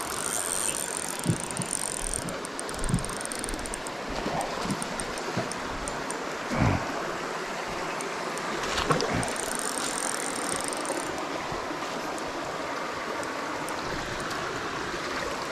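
Shallow creek water running steadily over riffles, with a few light knocks.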